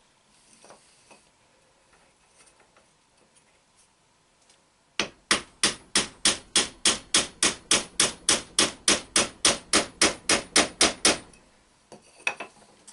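Hammer striking a wooden block to drive a new front bushing into the nose of a Chevy starter housing. It starts about five seconds in as a steady run of blows, about four a second for some six seconds, and a few lighter knocks follow near the end.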